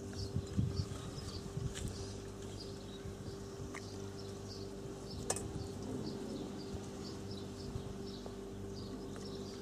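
Repeated short high chirps, a couple a second, over a steady low hum, with a few soft knocks and scuffs in the first two seconds and a single sharp click about five seconds in.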